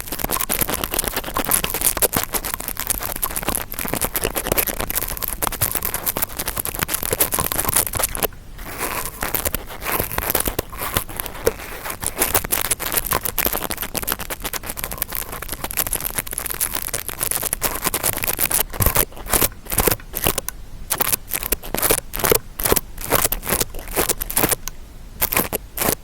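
Interdental brush scratching and scraping, made as an ASMR ear-cleaning sound. It is a dense, continuous crackly scratching at first; about two-thirds of the way through it turns into separate quick strokes, about two or three a second.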